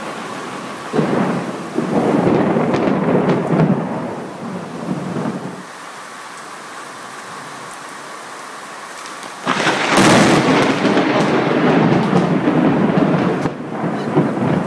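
Thunder in a rainstorm over a steady hiss of rain. A roll of thunder starts suddenly about a second in and dies away. After a lull, a sudden sharp thunderclap about ten seconds in, the loudest sound, keeps rumbling.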